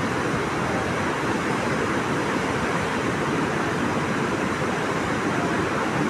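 Bharachukki Falls in heavy flow: a steady, unbroken rush of water pouring over the rocks.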